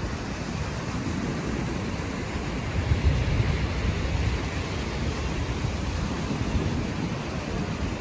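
Wind buffeting the microphone in uneven gusts, strongest about three seconds in, over a steady hiss of surf breaking on the shore.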